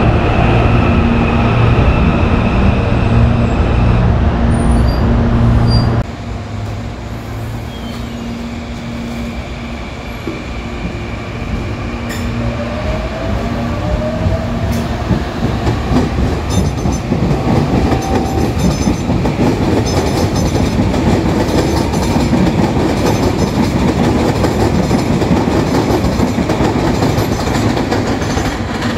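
Electric commuter trains. First a train moves alongside the platform close by, with a steady electric whine over a heavy rumble, and the sound cuts off abruptly about six seconds in. Then a more distant train runs, its whine rising in pitch as it gathers speed, and wheel clicks and rumble build toward the end.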